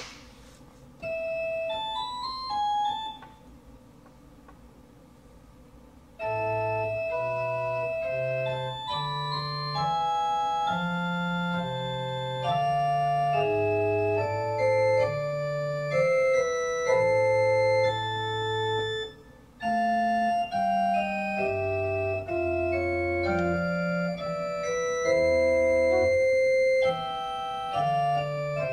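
Organ being played: a short phrase of held notes about a second in, a pause, then from about six seconds a continuous run of sustained chords and melody over a low bass line, with a brief break about two-thirds of the way through.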